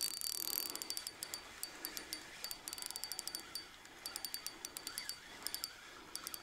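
Spinning reel's drag clicking in short, irregular bursts of rapid high clicks: a hooked fish is pulling line off against the drag.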